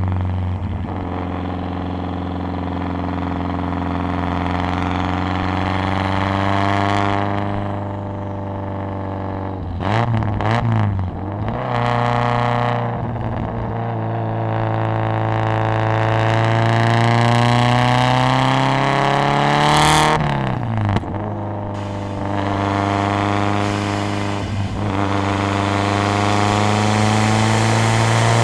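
Straight-piped exhaust of a Lancia Delta HF Integrale Evoluzione's turbocharged 2.0-litre four-cylinder, heard at the tailpipe as the car accelerates through the gears. The engine note climbs steadily, drops sharply at gear changes about ten and twenty seconds in, then climbs again, with brief sharp pops and crackles around the shifts.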